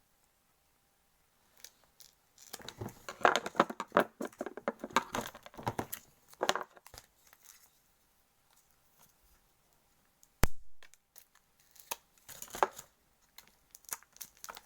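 Plastic packaging crinkling and tearing in bursts as a packet of chocolate melts is opened, with one sharp snap partway through.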